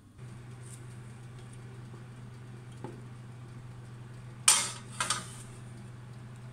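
Metal baking tray clattering twice as it is set down on the oven's round wire rack, over a steady low hum.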